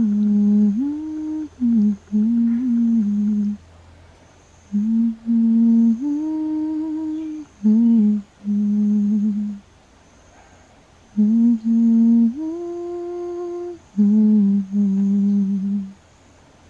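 A person humming a slow, simple lullaby tune to lull a baby monkey to sleep: short phrases of held notes that step up and back down, with pauses of about a second between them.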